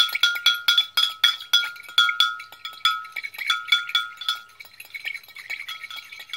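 A spoon clinking against the inside of a mug as it stirs baking soda into water, about three or four ringing clinks a second.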